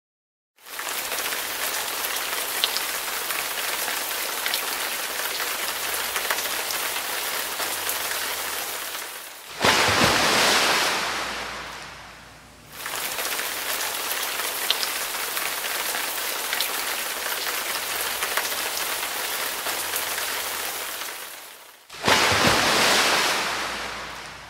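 Heavy rain falling as a steady hiss. It starts about half a second in and swells twice, about ten seconds in and again near the end, each surge fading away over two or three seconds.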